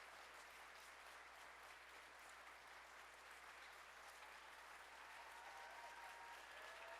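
Faint audience applause, steady throughout, with a few faint voices calling out near the end.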